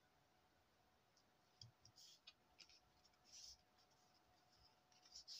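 Near silence, broken by a few faint rustles and taps of a sheet of patterned craft paper being handled and lifted: a couple about a second and a half in, another around three and a half seconds, and one near the end.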